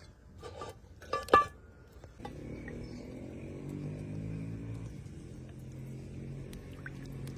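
A few light clinks, then from about two seconds in a steady, low engine-like hum that carries on.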